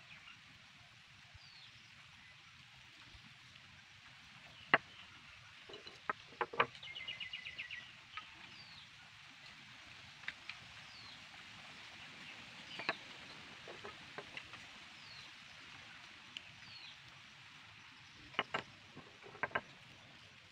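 Quiet outdoor background with birds chirping: short falling chirps every second or two and a quick trill about seven seconds in. A few sharp clicks and taps stand out over it, the loudest about five seconds in and a pair near the end.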